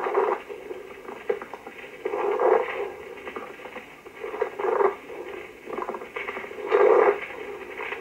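Pleural friction rub heard through a stethoscope: a scratchy, crackling rubbing noise that swells with the breaths in four louder bursts about two seconds apart. It is the sign of inflamed pleural layers, roughened by fibrin deposits, rubbing against each other.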